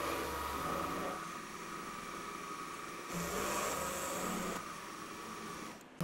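A machine tool running steadily as it cleans up the saw-cut faces of small metal blocks, a low hum with a faint high whine. The level steps up or down abruptly about a second in, around three seconds in and again past the middle.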